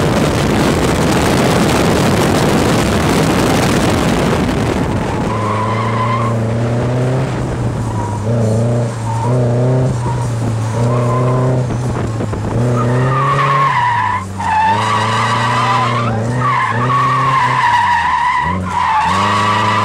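Nissan 240SX heard from inside the cabin while driven hard: a loud rushing noise for the first few seconds, then the engine revving up and down. From about two-thirds of the way in the tyres squeal in long wavering howls as the car slides.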